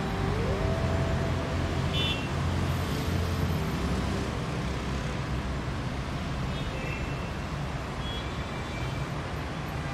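Steady road traffic noise: engine rumble and passing vehicles, with a short rising tone near the start and a few brief high-pitched tones.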